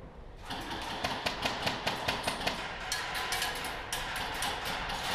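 Airsoft guns firing rapid strings of sharp shots, several a second, starting about half a second in with brief pauses between strings.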